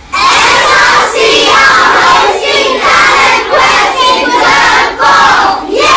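A class of schoolchildren shouting a sentence together in unison, phrase by phrase with short breaks between, likely the announcement "SRC are hosting Talent Quest in Term 4", loud and slightly ragged as many voices go at once.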